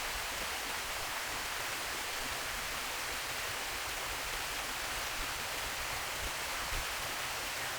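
Steady rushing water noise: an even hiss with no breaks.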